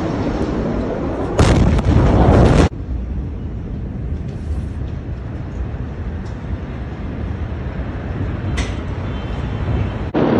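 Massive explosion of stored ammonium nitrate: a sudden, very loud boom about a second and a half in that lasts about a second and cuts off abruptly, followed by a steady low rumble.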